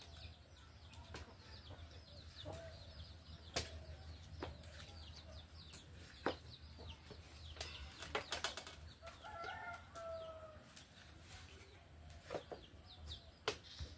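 Hens clucking now and then and small birds chirping in quick falling notes, with scattered sharp clicks and taps.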